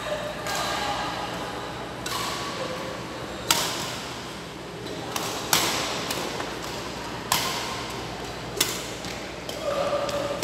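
Badminton rackets striking a shuttlecock back and forth in a rally: a series of sharp cracks about every one and a half to two seconds, echoing in a large hall.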